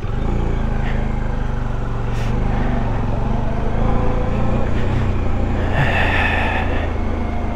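Motorcycle engine running steadily at low speed, a continuous low drone. A brief higher-pitched sound joins in about six seconds in.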